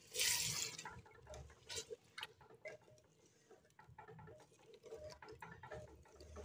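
Wooden spoon stirring yogurt and chicken in a clay handi: a brief hiss at the start, then soft, irregular clicks and scrapes of the spoon against the clay pot.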